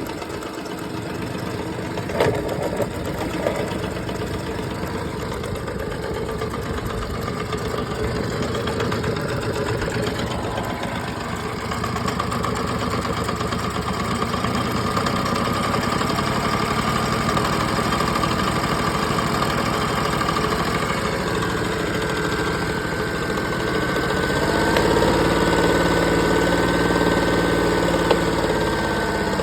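Honda BF30 three-cylinder four-stroke outboard motor running, making a sound its owner finds strange. There is a sharp knock about two seconds in, and the engine speeds up and gets louder near the end.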